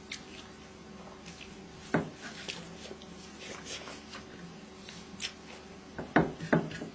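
Eating rice by hand: fingers squishing and mixing rice on a plate, with small wet clicks and mouth sounds of chewing. The loudest smacks come about two seconds in and twice near the end.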